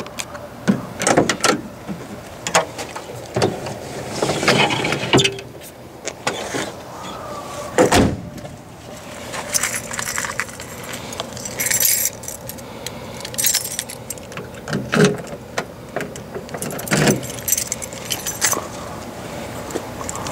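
Metal objects being handled: irregular clinks, knocks and jingling, with a cluster of jingling about ten to thirteen seconds in.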